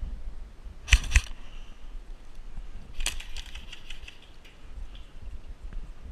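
Airsoft rifle firing: a quick group of sharp clacks about a second in, then a longer run of rapid clacks about three seconds in that thins out into scattered clicks.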